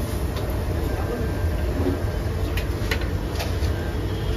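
Busy street ambience: a steady low traffic rumble, with a few sharp clicks about two and a half to three and a half seconds in.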